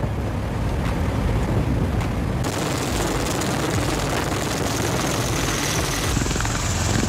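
V-22 Osprey tiltrotor running, its twin turboshaft engines and big proprotors making a steady rotor and engine noise. About two and a half seconds in the sound changes abruptly to a brighter, hissier roar, and it shifts again about six seconds in.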